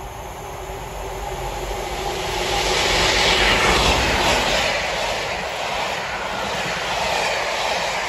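Class 50 diesel locomotive, with its English Electric 16-cylinder engine, approaching and passing close by at the head of a passenger train: the engine's drone grows louder to a peak about three to four seconds in as the locomotive goes by, then the coaches rush past with a steady rumble.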